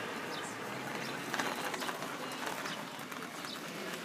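Outdoor ambience: birds chirping over a steady background hiss, with a brief cluster of faint rattles a little over a second in.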